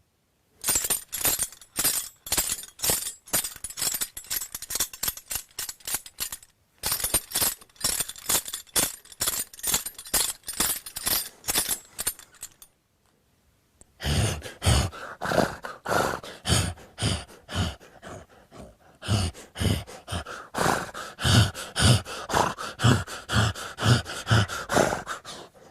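Foley horse-bridle track: metal bridle fittings jangled in quick, even rhythm to match horse footsteps. The jingling stops for a second or so about 12 s in, then resumes about 14 s in along with steady low hoof-like clops.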